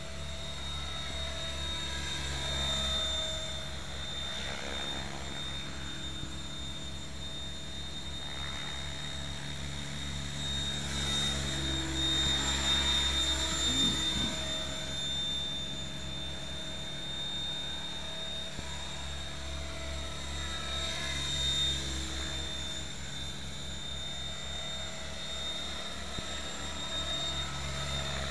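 Electric Mikado Logo 600 RC helicopter in flight: a steady motor whine and rotor noise that swells and slides in pitch three times as it flies past, loudest about halfway through.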